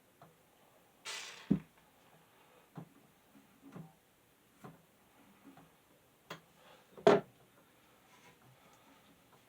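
Scattered knocks and clicks from handling the box fan and tools during bench work. There is a short scraping hiss about a second in, ending in a sharp knock, and the loudest knock comes about seven seconds in.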